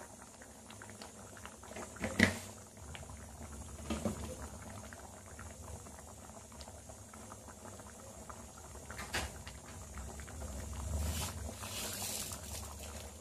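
Thick moong dal sambar simmering in a pan, many small bubbles popping and blipping. A few sharper short pops or knocks stand out, the loudest about two seconds in.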